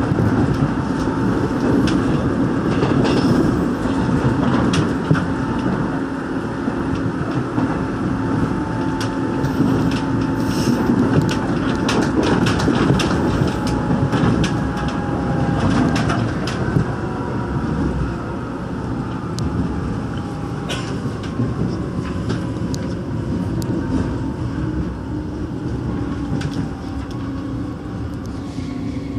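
Inside a rheostat-controlled Korail Line 1 electric train running on the track, with wheel-on-rail rumble and sharp clicks over rail joints. From about halfway on, a motor whine slowly falls in pitch and the noise eases off as the train slows into a station.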